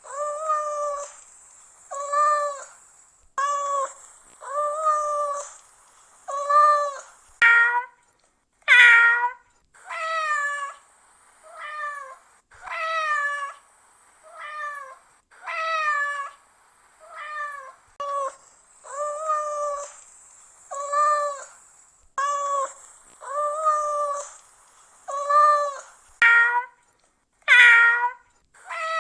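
Domestic cat meowing over and over, one short meow roughly every second and a half, each rising and then falling in pitch; a few higher, louder cries stand out among them.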